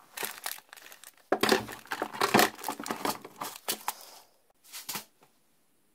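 Hand rummaging on a shelf of plastic glue bottles and tape rolls, items knocking and rattling against each other and the wood, then a plastic compartment box being pulled out; a last couple of knocks about five seconds in.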